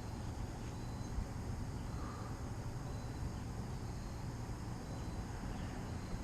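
Steady low rumble of wind buffeting the microphone, with faint high insect chirring, likely crickets, underneath.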